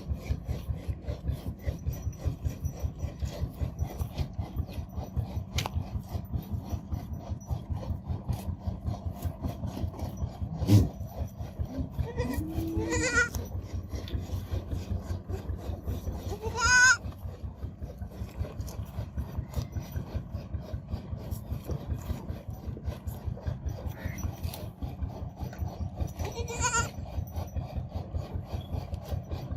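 Goat kid bleating several times in short calls, the clearest about halfway through and near the end. Under the calls runs a fast, even rasping rhythm. A single knock comes about a third of the way in.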